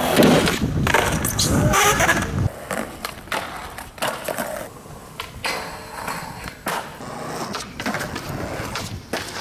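Skateboard wheels rolling over rough concrete, loudest for the first couple of seconds, then a string of sharp clacks and knocks as the board pops, lands and strikes ramps and ledges.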